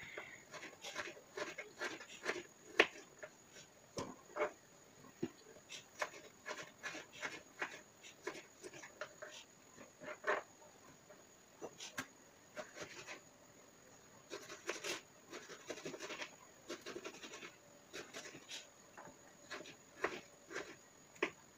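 Kitchen knife cutting raw chicken on a wooden chopping board: irregular light taps and knocks of the blade against the board, with a few sharper knocks.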